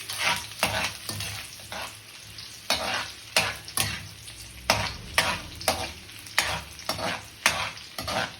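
Garlic, onion and chicken sizzling in hot oil in a pan, stirred with repeated scraping strokes of a utensil against the pan, about two a second, with a short pause about two seconds in.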